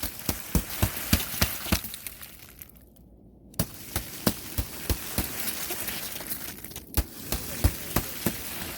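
Footsteps crunching and cracking on snow frozen into a thick, hard ice crust. A quick run of sharp crunches gives way to a short pause about two and a half seconds in, then the crunching goes on irregularly.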